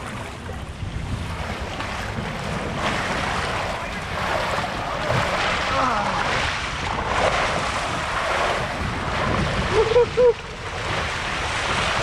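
Water rushing and splashing down a water slide, with wind buffeting the microphone.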